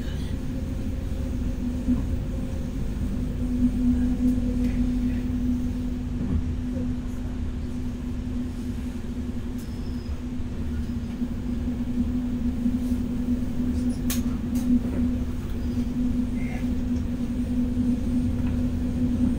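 Cabin running noise of a Stadler FLIRT electric multiple unit travelling at speed: a steady low rumble from the wheels on the track, with a steady hum over it. A single sharp click comes about fourteen seconds in.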